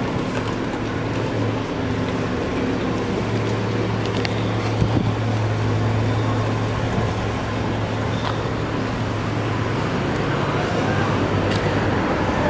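City street noise: a steady low hum under a constant hiss, with one sharp knock about five seconds in.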